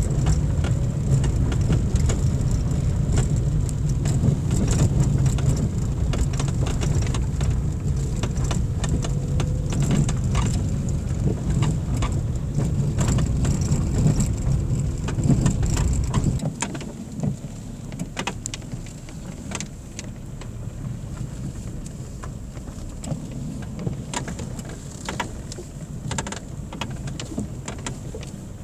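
Car driving on a gravel dirt road, heard from inside the cabin: a steady low rumble of tyres and engine with scattered sharp clicks. About sixteen seconds in the rumble drops away suddenly, leaving quieter road noise and clicks.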